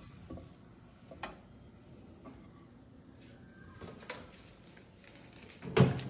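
Light clicks and clinks of a metal baking tray being taken out of an oven, with one loud knock near the end.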